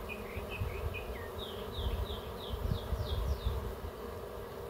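Honeybees flying around an opened hive, a steady hum. A run of short, high, falling chirps, about three a second, sounds in the middle.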